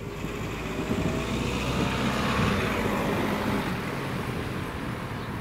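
A car driving past close by, engine and tyre noise swelling to a peak about halfway through and then easing off as it moves away.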